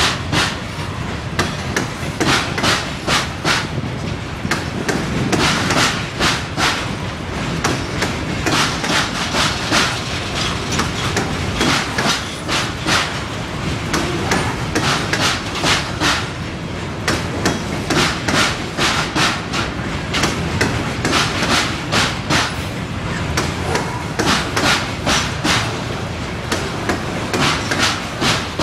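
Freight train of open hopper cars rolling past, steel wheels clacking over rail joints in repeated clusters of sharp clicks over a steady rumble.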